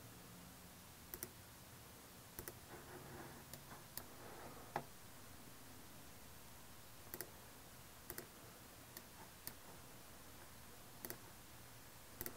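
Faint, scattered clicks of a laptop's keys and trackpad, about a dozen spread out, several in quick pairs like double-clicks, over a low room hiss.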